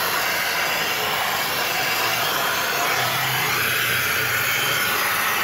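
Air-and-water spray gun hissing steadily as it blasts water over a bare car engine, with water splashing off the metal.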